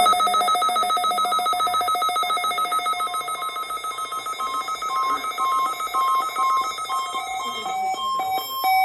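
Weather radio receiver's alert alarm: a loud, rapidly warbling electronic beep that starts abruptly, signalling an incoming emergency alert. From about three seconds in, a second, higher single tone joins it in short on-off pulses.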